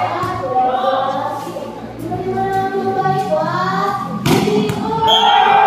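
Many young voices chanting and yelling together in support during a volleyball rally. A sharp slap of the ball being spiked at the net comes a little over four seconds in.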